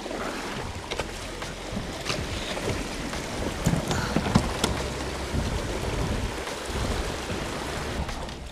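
Kayak moving on a river: water splashing and sloshing around the hull, with scattered knocks and a low uneven rumble of wind on the microphone.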